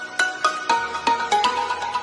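Background music: a quick run of plucked string notes, about four or five a second.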